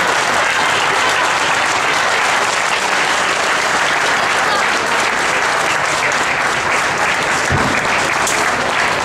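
Crowd applauding steadily, with some voices calling out over the clapping. A single low thump comes about three-quarters of the way through.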